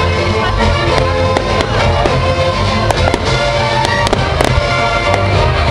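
Aerial fireworks bursting and crackling in a rapid string of sharp cracks and pops, over music with held notes.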